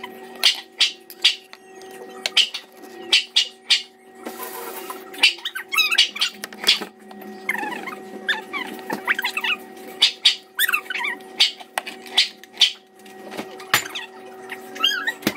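Dogs whining and whimpering in wavering high pitches while waiting for their food, with many short sharp clicks and knocks and a steady low hum underneath.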